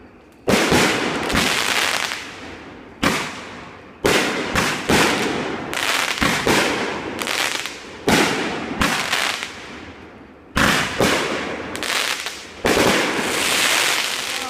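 Fireworks grand finale: aerial shells bursting in quick succession, about a dozen sharp bangs at uneven intervals, each trailing off into a fading crackle before the next.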